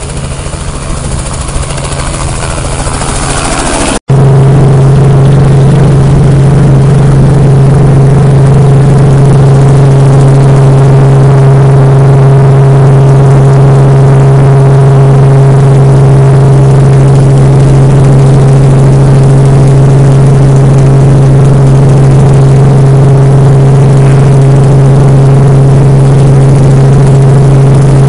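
Small helicopter lifting off, its rotor and engine noise swelling with a rising tone. After an abrupt cut about four seconds in comes the steady, very loud drone of the helicopter heard from inside the cabin in flight: a deep hum with a higher tone above it.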